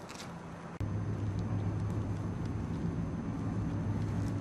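Vehicle engine running with a steady low drone, which cuts in abruptly about a second in.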